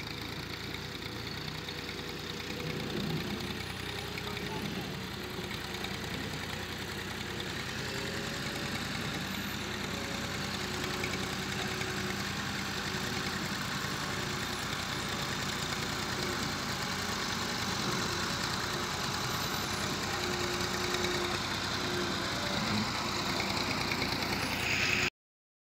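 Massey Ferguson 375 tractor's four-cylinder diesel engine running steadily as it pulls an implement across a field. The sound cuts off suddenly near the end.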